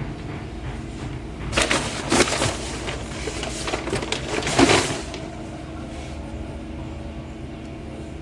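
Packaging being handled, crinkling and rustling with many small crackles for about three and a half seconds, starting a second and a half in.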